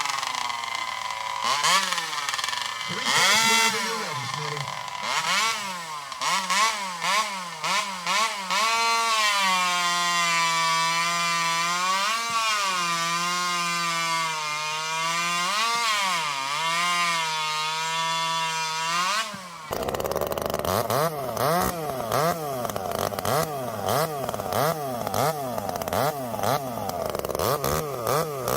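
Poulan Wild Thing two-stroke chainsaw running and being revved up and down over and over. About two-thirds of the way in the sound changes abruptly to a rougher, noisier run with quick rises and falls in pitch.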